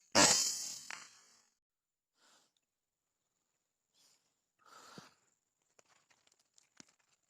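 A single .177 air-rifle shot, sudden and loud, fading over about a second. Faint rustling and a few light clicks follow, with crickets chirping faintly in the background.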